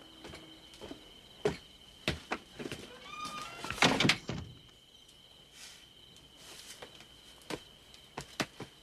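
Footsteps on wooden steps and a wooden floor, with a short creak and then a wooden door shutting with a thump about four seconds in. A few lighter knocks and steps follow.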